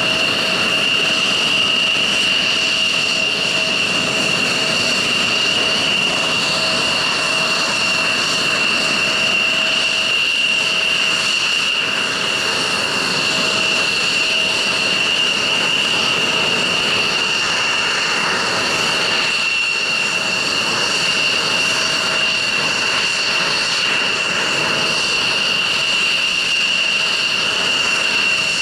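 F-16 fighter jets' engines idling together: a steady high whine over a loud rushing hiss.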